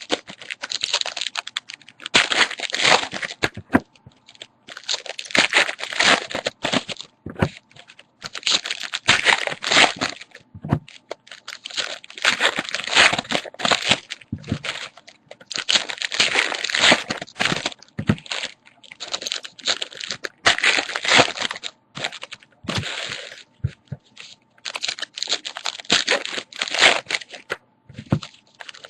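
Plastic card-pack wrappers crinkling and tearing as packs of baseball cards are opened and handled, in a long run of irregular rustling bursts with short pauses between them.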